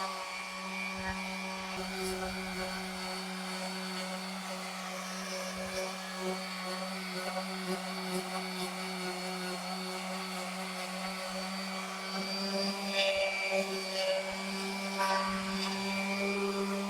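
Electric power sander running steadily with 60-grit paper on a red cedar board, a constant motor hum with a light hiss of sanding.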